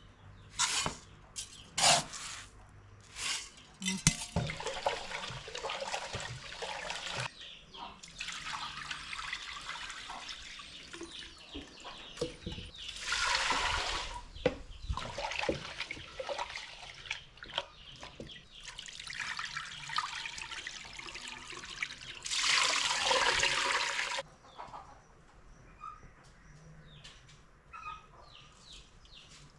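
Water being poured and sloshed in a container, after a few sharp knocks at the start. Two louder gushes of pouring come about halfway through and again near the end.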